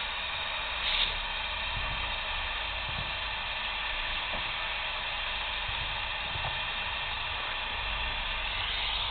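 Steady hiss of static from a handheld FM radio transceiver with its squelch open, listening for an amateur radio satellite that has not yet risen high enough above the horizon to be heard.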